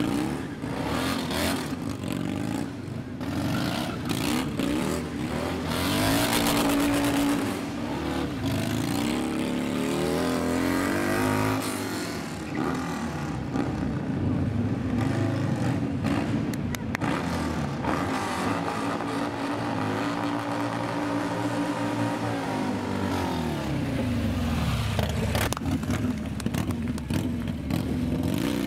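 Sport motorcycle engine revving hard during stunt riding, its pitch climbing and dropping again and again as the throttle is worked.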